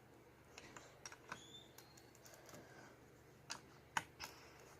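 Plastic Lego bricks clicking and tapping as they are handled and pressed together: a few scattered sharp clicks, the loudest about four seconds in.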